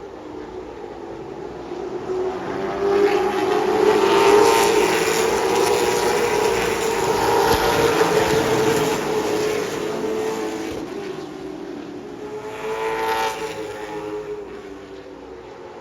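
Late model stock cars' V8 engines running at racing speed on the oval. The engine sound swells, is loudest between about four and nine seconds in, fades, then swells briefly again near thirteen seconds.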